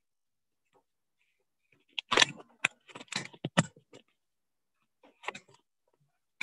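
Handling noise from the camera being gripped and repositioned: a cluster of knocks, rubs and clicks about two seconds in, then a couple more bumps near the end.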